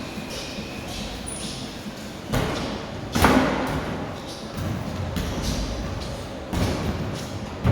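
A series of dull thuds and knocks with some echo, the loudest about three seconds in.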